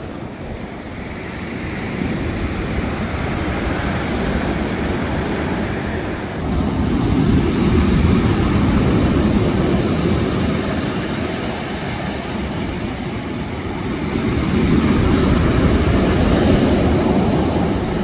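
Rough sea surf breaking on a pebble beach: a steady roar of waves that swells louder about a third of the way in and again near the end.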